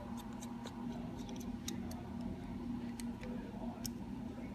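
Faint, scattered light ticks and clicks of a precision screwdriver working the iPhone SE's bottom pentalobe screws, over a steady low hum.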